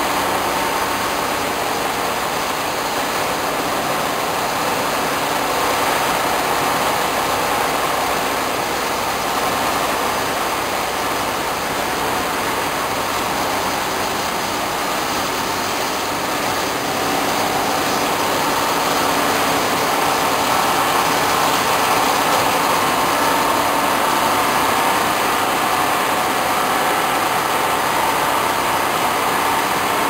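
Plastic film washing line running: a steady mechanical drone of its motors mixed with water churning in the washing tanks.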